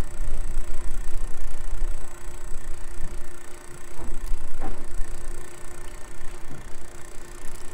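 A boat's Yamaha outboard engines run with a steady hum, under a rumble of wind buffeting the microphone.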